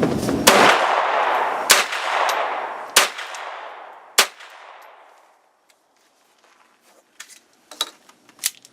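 Small handgun fired unsuppressed: four sharp, loud shots about a second apart. A few faint clicks follow near the end.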